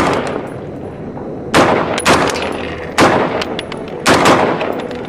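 Rifle gunfire: about five sharp shots at irregular intervals, the last two close together, each trailing off in a ringing echo.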